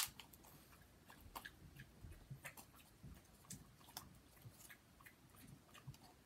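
Hands handling a wet wipe and a slime-filled balloon: faint scattered clicks and small handling noises, with one sharp click right at the start.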